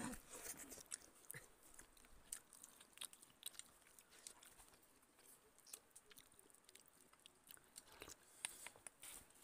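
Faint, scattered chewing and small clicks of eating. Near the end a spoon scoops cooked rice from a metal pot.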